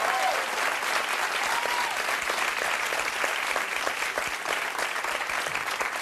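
Studio audience applauding steadily, with a couple of voices calling out in the first two seconds.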